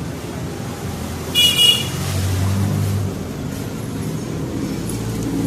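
A vehicle engine running steadily at low revs, with a short, loud horn beep about one and a half seconds in.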